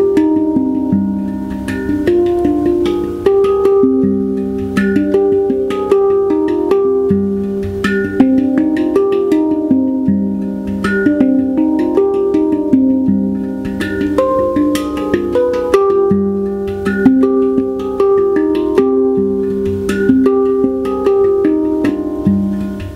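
Handpan (hang drum) played with the fingertips: a flowing melody of struck steel notes, several a second, each ringing on so that neighbouring notes overlap.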